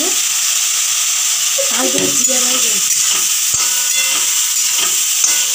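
Carrot pieces sizzling in hot oil in a steel kadai, stirred with a spatula, as a steady hiss. Two sharp clicks come in the second half.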